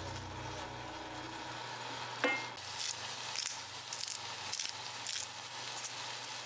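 Shrimp and edamame sizzling in a hot frying pan, with a sharp ringing clink of the tongs against the pan a little over two seconds in, then repeated small spitting crackles.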